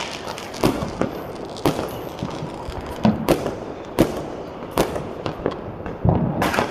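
Firecrackers and aerial fireworks going off on all sides: an irregular string of sharp bangs and cracks, about one or two a second, thickening into a dense crackle near the end.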